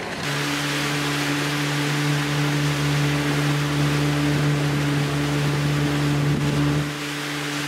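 Pontoon boat's outboard motor running at a steady cruising speed, a constant low hum, over a rush of wind and water.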